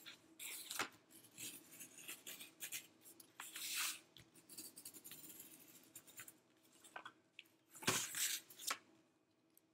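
Utility blade cutting through corrugated cardboard in short, irregular scratchy strokes, with a louder scrape of the cardboard sheet being shifted about eight seconds in.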